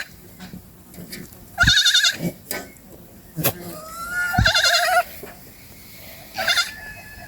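Goats bleating three times, each bleat a quavering, wavering cry; the second is the longest and the last is short and fainter. A few sharp knocks fall between the bleats.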